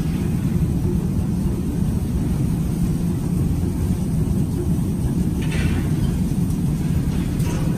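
Steady low roar of a hot-glass workshop's gas-fired furnace burners, with two short higher rasps about five and a half and seven and a half seconds in.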